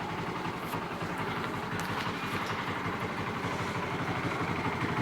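Honda CS1 motorcycle's single-cylinder engine idling steadily with a rough, rapid rattle, the 'snoring' noise that the owner links to low oil as the engine warms up.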